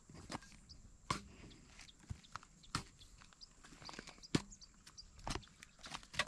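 Blade of a long-handled digging tool striking and chipping into hard, cracked dry mud, with irregular sharp knocks about every half second to second, the loudest about four seconds in.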